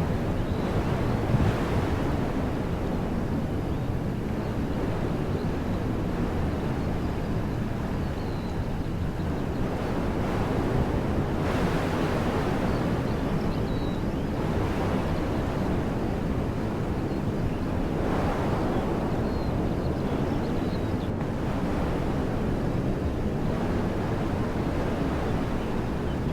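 Wind blowing through woodland trees: a steady rushing that swells and eases in gusts every few seconds, over a low rumble of wind on the microphone.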